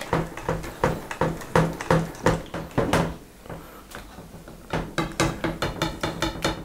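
Short knocks and scrapes on plastic, a few a second, as chopped dried tomatoes are scraped out of a plastic tub into a plastic bucket of tomato-cream mixture. After a lull about three seconds in, a quicker run of knocks and scrapes comes near the end.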